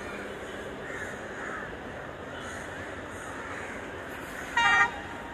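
Crows cawing over a steady background hum of city noise. One loud, short caw close by comes about four and a half seconds in.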